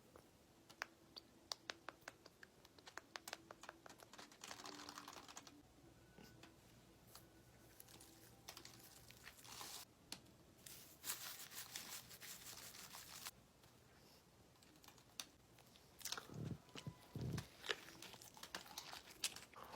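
Quiet handling of food packaging: rustling and tearing of a wrapper with many small sharp clicks and taps. Two low thumps come near the end.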